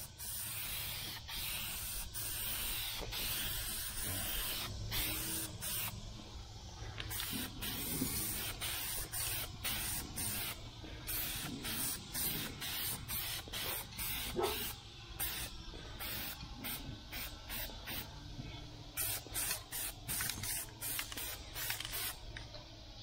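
Aerosol can of black spray paint hissing in sweeping passes as a guide coat is laid over primer. There are many short clicks throughout and a few brief pauses.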